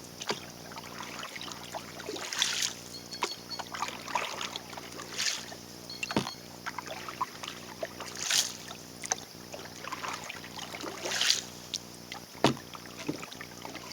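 Paddle strokes swishing through calm lake water beside a small sailing dinghy, a stroke about every three seconds, with a couple of sharp knocks of the paddle against the hull.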